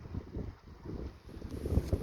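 Wind buffeting the microphone, coming in irregular low rumbling gusts.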